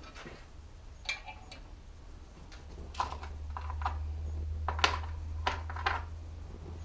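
Small metal parts and tools clinking and tapping a handful of times, sharp separate clicks, over a low rumble that swells in the middle and fades near the end.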